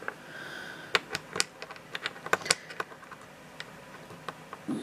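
Sharp clicks and taps of small parts being handled in an airsoft version 2 gearbox shell while the trigger and its spring are refitted: a quick cluster of about a dozen clicks in the first half, then a few scattered ones.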